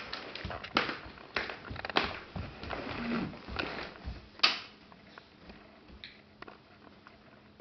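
Irregular soft thumps and clicks of a toddler's steps on a hardwood floor as she walks with a cat wand toy, the loudest about four and a half seconds in, then fading to a few faint ticks.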